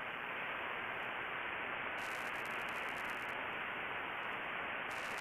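Steady receiver hiss and static from a SoftRock 80/40 software-defined radio tuned to 80-metre lower sideband, with no station transmitting. The receive filter, set to about 3 kHz, cuts the hiss off sharply above that.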